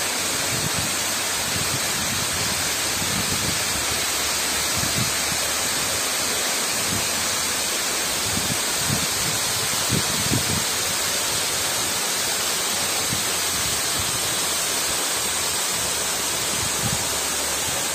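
Waterfall pouring down a tall rock face: a steady, dense rush of falling and splashing water.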